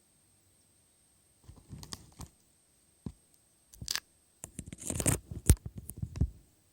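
Packaging being opened by hand: irregular tearing, scratching and crinkling with sharp clicks. It starts after about a second and a half of silence and grows louder toward the end.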